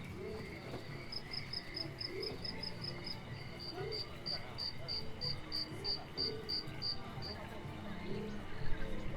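Cricket-like insect chirping: a quick run of high chirps, about six a second, begins about a second in, then slower, evenly spaced chirps, about three a second, run past the middle. Underneath is a low background murmur.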